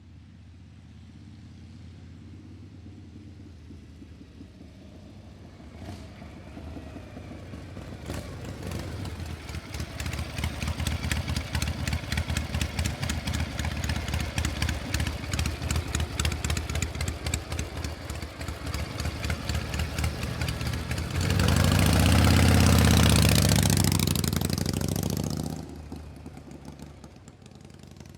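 Metal gear mechanism running: a low hum builds into a fast, even metallic clatter. Near the end there is a louder stretch of about four seconds before it dies down.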